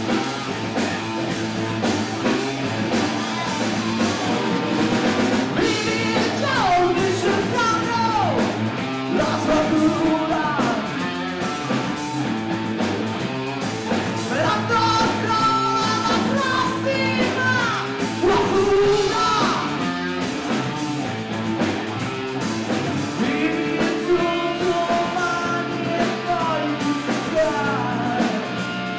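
Live rock band playing: distorted electric guitar, electric bass and drum kit, with a male singer.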